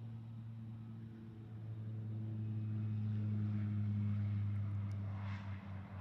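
A low, steady engine drone that grows louder over about four seconds and then eases off.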